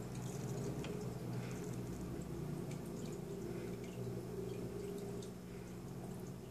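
Water dripping and trickling in a home aquarium, small scattered drips over a steady low hum.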